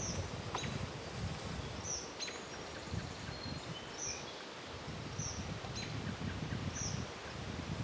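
Small songbird giving short, high chirps about once a second, over a low rustling noise in the woods.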